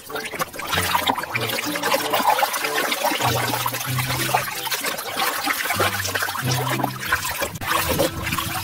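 A hand swishing and scrubbing a plastic toy in a tub of soapy water: continuous splashing and sloshing.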